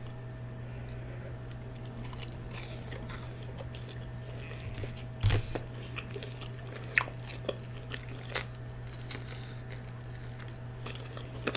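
Close-up mouth sounds of a person chewing a fried chicken sandwich: wet smacks and clicks, with louder ones about five and seven seconds in, over a steady low hum.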